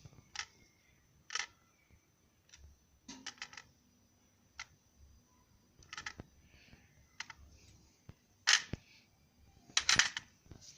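Small, irregular clicks and light taps from handling the pins and springs taken out of a pin-tumbler lock cylinder, with two louder clicks near the end.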